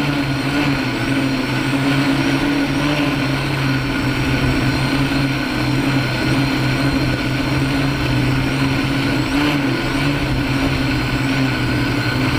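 Electric motors and propellers of a MikroKopter Hexa hexacopter, 80 cm across, running in flight, heard close up from a camera taped under one of its arms. A steady hum whose pitch wavers slightly as the motors adjust.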